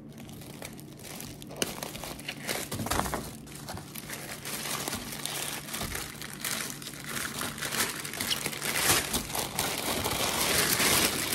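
A thin black protective cover for a camping sink being pulled out and unfolded by hand, crinkling and rustling continuously and getting louder in the second half.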